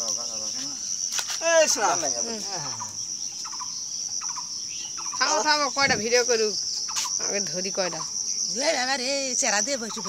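A steady, high-pitched drone of insects, with several short bouts of calls sliding up and down in pitch over it, about a second and a half, five to six, and nine seconds in.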